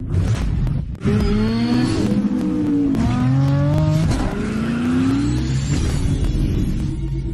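A car engine revving hard and accelerating through the gears: the pitch climbs, drops at each shift, and climbs again several times over a steady low rumble.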